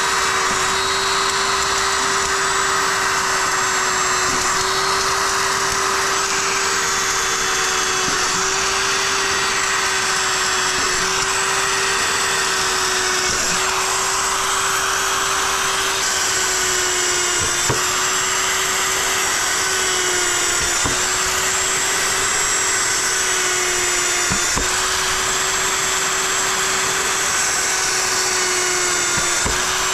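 Corded electric drill running continuously at a near-constant pitch while it drills holes through a plastic barrel lid, with a few faint knocks in the second half.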